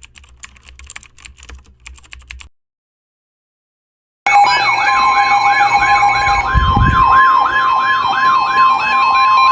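Faint clicking, then a pause. About four seconds in, an emergency alert starts loud: steady attention tones with a fast warbling siren over them. After a couple of seconds the tones change to a single steady tone, the pattern of a NOAA Weather Radio warning alarm.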